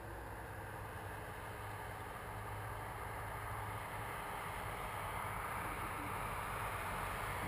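Distant paramotor engine droning steadily, with a hiss that grows gradually louder.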